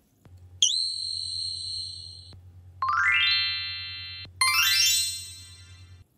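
Edited-in synthesized sound effects. A high electronic tone dips in pitch and then holds for under two seconds. It is followed by two rising, chime-like sweeps. All of it sits over a low steady buzz that cuts off just before the end.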